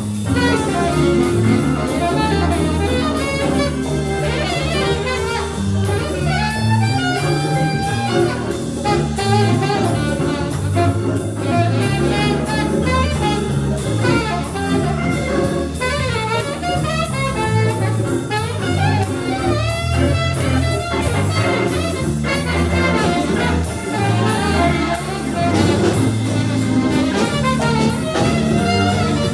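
A live jazz band playing an instrumental: a wavering lead melody over moving bass notes and a drum kit, with no singing.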